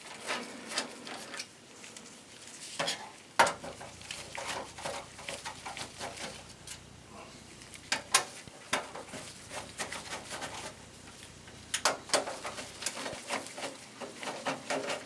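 A Phillips screwdriver and gloved fingers working the power-supply mounting screws out of the back of a steel desktop computer case. The sound is irregular small metallic clicks and clinks of the tool and screws against the sheet-metal chassis, with a few sharper knocks.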